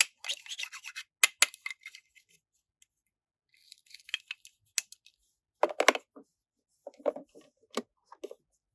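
Small plastic toy parts and packaging being handled: scratchy rustles and scattered sharp clicks and clacks, pausing briefly about two seconds in and growing louder in the second half.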